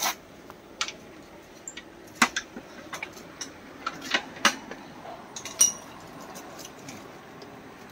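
Light clinks and clicks of small metal parts or tools being handled, about a dozen at uneven intervals, the sharpest a little over two seconds in and about four and a half seconds in.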